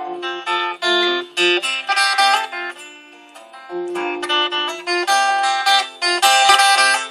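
Acoustic guitar playing an instrumental passage of picked single notes and strums between sung verses, live.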